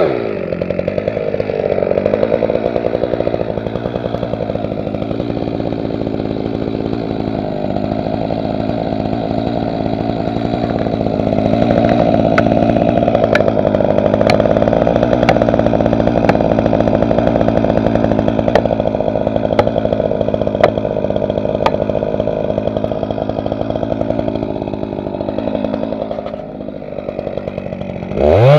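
Gasoline chainsaw idling steadily between cuts, with a few faint clicks in the middle.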